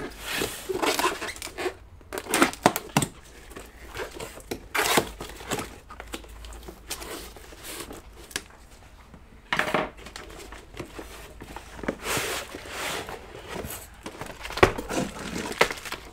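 Cardboard box and moulded pulp packaging being opened and handled by gloved hands: scraping, rustling and crinkling of cardboard and plastic wrap in short irregular spells.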